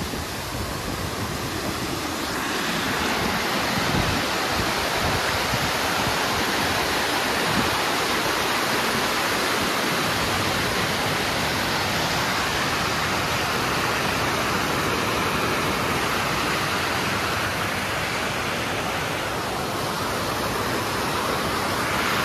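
Waterfall: a steady rush of falling water, stepping up in level about two seconds in and then holding even.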